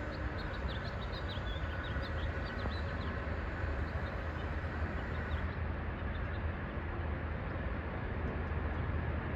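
Steady low rumble of background noise, with small birds chirping in quick short notes through the first half or so.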